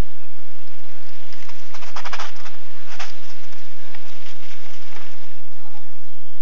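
Mountain bike coming down a dirt singletrack and passing close, with a spell of rapid, even ticking about two seconds in and a few sharper ticks as it goes by, over a steady hiss.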